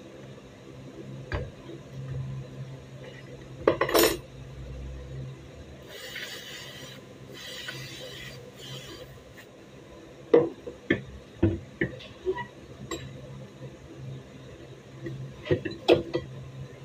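Metal gun parts knocking and clicking as a butt stock is fitted to a 30-bore MP5-pattern gun: a cluster of knocks about four seconds in, several more around ten to twelve seconds, and another pair near the end. In the middle comes an aerosol spray can hissing in a few short bursts.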